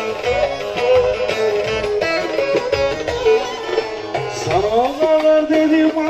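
Turkish folk dance music (oyun havası): a fast plucked-string melody over a steady drum beat, with no singing. About four and a half seconds in, a rising slide leads into held notes.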